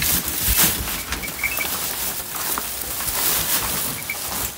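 Dry alfalfa hay rustling and crackling as an armful is pushed into a wooden feeder and spread by hand. A few faint, short, high bird chirps sound over it.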